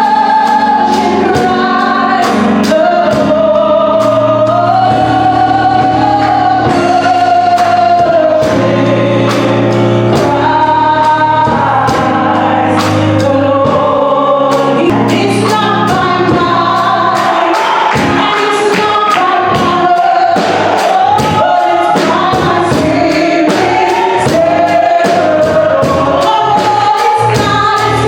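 Gospel worship song sung by a group of voices over a band, with sustained bass notes and a steady drum beat.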